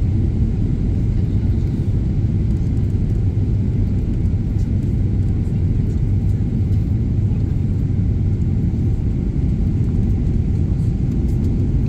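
Steady low rumble inside the cabin of a Boeing 777-300ER descending on approach: engine and airflow noise heard from a window seat over the wing.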